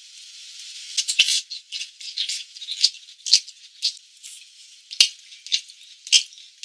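Squid skewers sizzling on a hot griddle plate: a hiss that builds over the first second, then irregular sharp crackles and pops.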